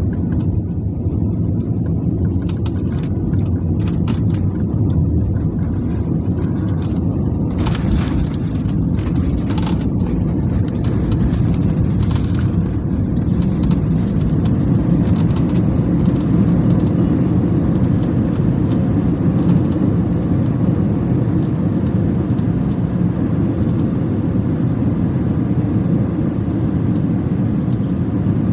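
Cabin noise of an Airbus A320-family airliner landing, heard inside at the window: a steady engine and airflow rumble. About eight seconds in, a cluster of sharp knocks and rattles marks the wheels touching down and the spoilers deploying. The rumble then carries on as the jet rolls down the runway, growing a little louder midway.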